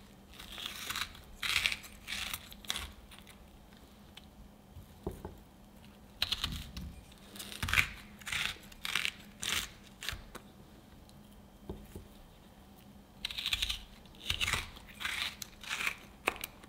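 A steel melon baller twisting into a firm peeled peach and scooping out balls of the crisp flesh. It makes short, crisp scraping strokes in three bouts of several quick scrapes each, with pauses between.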